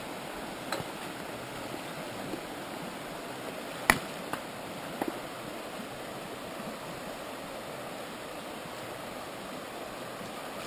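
Shallow, rocky creek running steadily around the animals' legs, with a few short sharp knocks, the loudest about four seconds in.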